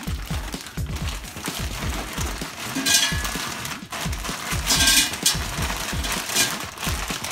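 Frozen French fries poured from a plastic bag into an air fryer basket: the bag crinkling and the fries clattering into the basket, loudest about three seconds in and again around five seconds. Background music plays underneath.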